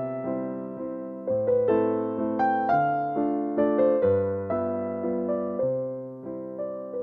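Background piano music: a melody over low bass notes, each note struck and dying away.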